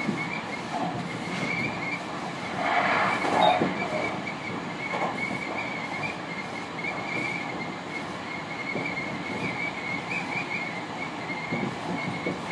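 Tobu 50000 series electric train running, heard from inside the front car: steady rumble of the car with a thin, wavering high squeal, and a louder rush of noise about three seconds in.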